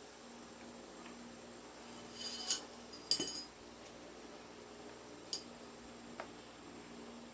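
A few light metallic clinks, as small metal parts or tools are handled, in two quick clusters a couple of seconds in, then a single fainter clink. A faint steady hum runs underneath.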